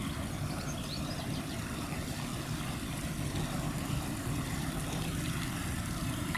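Low, steady rumble of a river cruise ship's diesel engines as the ship passes close by.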